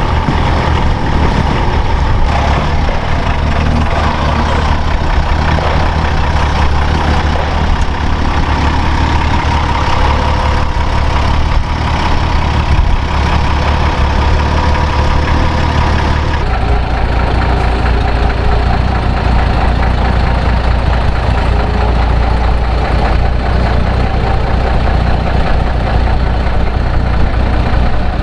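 Off-road truck engine running steadily at low revs. About sixteen seconds in, the sound changes abruptly to a deeper, duller engine note.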